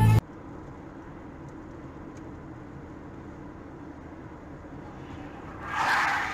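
Steady road and engine noise of a car cruising on a highway, picked up inside the car by a dashcam. Near the end a louder rushing sound swells up briefly, as of a vehicle passing close by.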